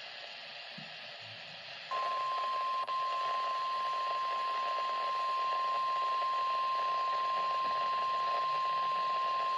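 NOAA Weather Radio's 1050 Hz warning alert tone: about two seconds of radio static hiss, then one long steady beep that holds to the end. The tone signals that a warning-level message is about to be broadcast.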